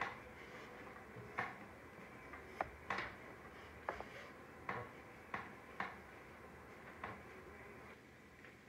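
A series of faint, sharp clicks or ticks at uneven intervals, about one a second or a little faster.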